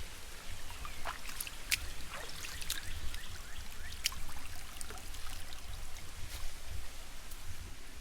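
Rain falling in woodland: a steady wash of water noise with scattered sharp drops striking close by, over a low rumble.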